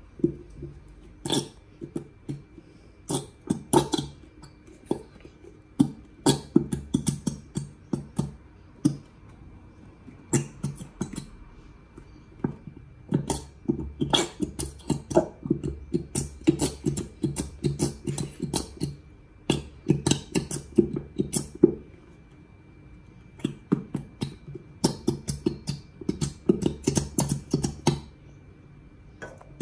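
Thick blue Elmer's glue being squeezed from a squeeze bottle into a bowl, squelching and sputtering out of the nozzle as air and glue are forced through. It comes in runs of quick spurts with short pauses between.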